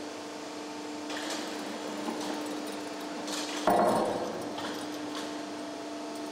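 Cold-forming plate bending machine pressing a steel hull plate between its rollers: a steady machine hum with a few light metallic clanks, and one loud metal bang a little past halfway that rings briefly.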